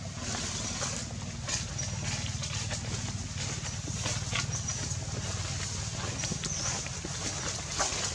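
Outdoor ambience: a steady low hum with scattered light crackles and rustles, and faint, short high-pitched chirps now and then.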